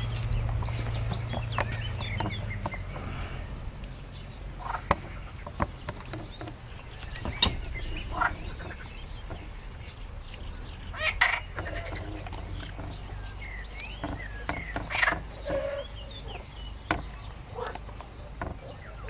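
Pond-side ambience: scattered short animal and bird calls with a few small pitch glides, and occasional sharp clicks. Under them runs a low steady hum that fades out about two-thirds of the way through.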